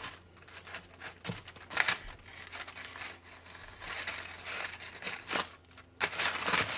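Parchment paper and aluminium foil crinkling in irregular bursts as they are pulled back by hand from around a seitan loaf, over a faint steady low hum.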